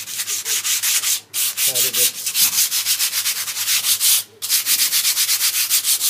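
Sandpaper rubbed by hand over a piece of driftwood: fast back-and-forth rasping strokes, stopping briefly about a second in and again after four seconds, to sand off beach sand left on the wood.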